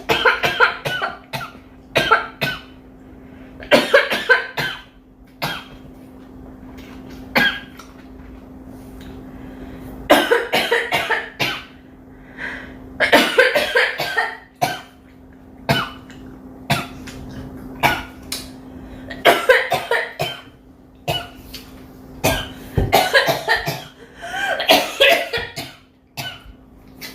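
A girl coughing over and over, in bursts of one to several coughs with short pauses between. A steady low hum runs underneath.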